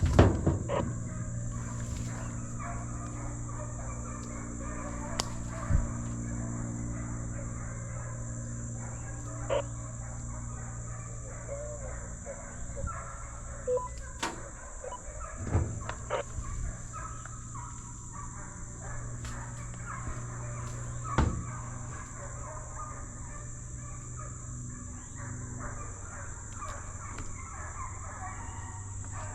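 A steady low mechanical hum with a constant high whine above it, a few scattered knocks, and faint, brief animal calls in the distance.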